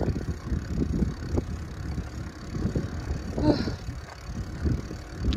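Wind buffeting the microphone while riding a bicycle: an irregular rumble that rises and falls. There is a short pitched sound about three and a half seconds in.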